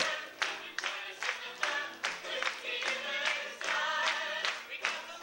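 Group of performers singing an upbeat stage song together, with steady clapping on the beat about three times a second.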